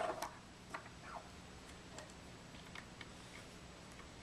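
Small metal plunger parts (seal carriers with their seals) clicking and tapping as they are handled and set down on a tabletop: a quick cluster of clicks at the start, then scattered light single ticks.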